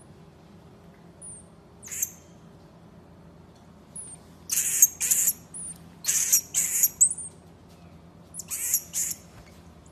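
Common marmoset calling: thin, high chirps and short, harsh, high-pitched calls. The calls come in bunches, the loudest between about four and a half and seven seconds in, with another bunch near the end.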